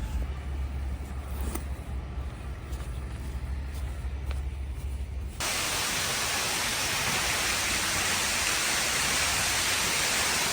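A low rumble with a few faint knocks, then, about five seconds in, an abrupt cut to a loud, steady rushing noise.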